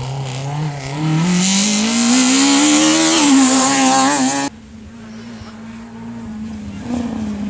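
Rally car engine revving hard as the car approaches and passes close by, its pitch climbing over a couple of seconds. The sound cuts off abruptly about halfway through, leaving a fainter, steady engine drone.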